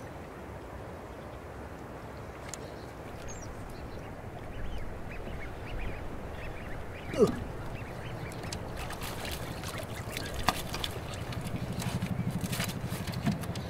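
Quiet marsh background with a single short animal call falling in pitch about seven seconds in. Near the end a low buzzing rattle, with sharp clicks and knocks and water, as a netted fish trap is hauled up into a wooden punt.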